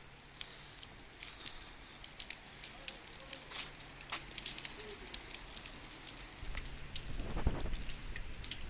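Rain falling, with many close drops striking a surface as irregular sharp ticks over a soft hiss. A low rumble comes up about six and a half seconds in.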